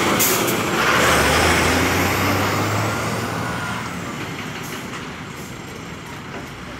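Ashok Leyland tipper truck's diesel engine and tyres as it drives past close by, fading steadily as it moves away. A brief hiss near the start.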